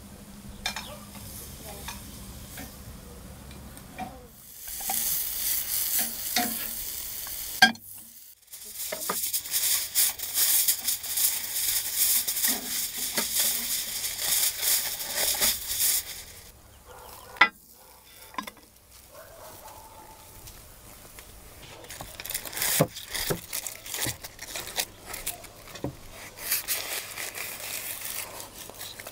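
Food sizzling in two long stretches of crackling hiss, the second about eight seconds long. Near the end, aluminium foil around corn cobs crinkles and clicks as it is cut open with knives.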